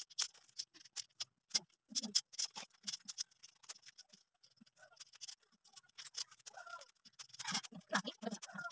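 Small metal screws and nuts clicking and clinking against perforated steel angle bars as a shoe rack is fitted together by hand: an irregular string of sharp little clicks.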